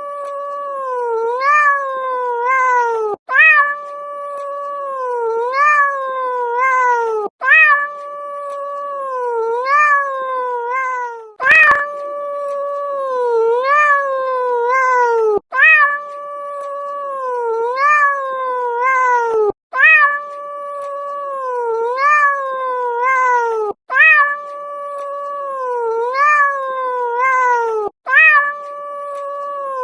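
A cat meowing over and over, loud calls that rise and fall in pitch. The same phrase of meows repeats about every four seconds, each time after a brief break.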